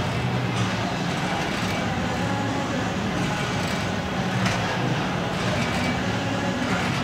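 A steady low mechanical drone with a rushing noise over it, and a faint light knock about four and a half seconds in.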